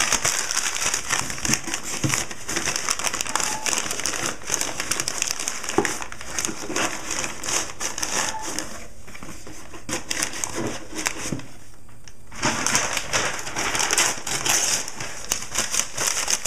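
Newspaper being crumpled and stuffed into the gaps of a cardboard shipping box as packing: continuous crinkling and rustling, with brief lulls about nine and twelve seconds in.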